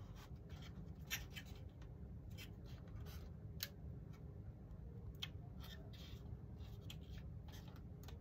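Light clicks, taps and scrapes of wooden model-aircraft wing parts being handled and fitted together on a building board, a few sharper clicks about a second in and between three and four seconds in, over a steady low hum.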